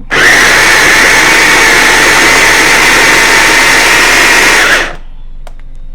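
Small electric food processor running at full speed, chopping carrots and bell peppers: a loud, steady motor whine that starts abruptly and cuts off after about five seconds.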